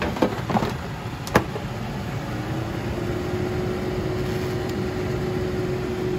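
Basket air fryer: the basket slides into the drawer with a few light knocks and latches with a sharp click, then the fan motor spins up. Its hum rises in pitch and settles to a steady tone.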